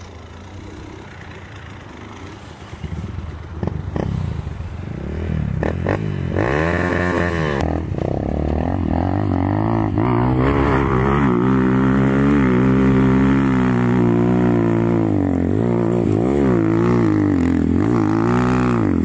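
Dirt bike engine revving hard on a steep hill climb, its pitch rising and falling with the throttle. It starts faint and grows much louder from about four seconds in as the bike comes up the slope, then cuts off suddenly at the end.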